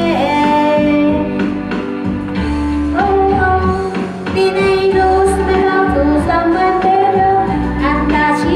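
A woman singing into a handheld microphone over backing music, holding long notes.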